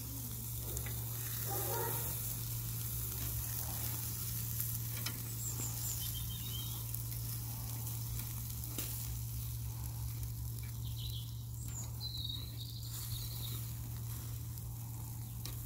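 Pork slices sizzling over hot charcoal on a grill grate, a steady hiss with a few sharp pops.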